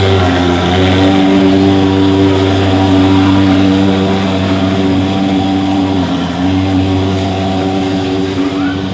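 Portable thermal fogging machine running: its pulse-jet engine makes a loud, steady pitched drone that dips briefly about a second in and again around six seconds in.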